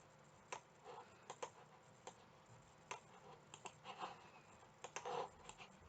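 Faint, irregular clicking of a computer mouse and keyboard: about a dozen short clicks spread unevenly.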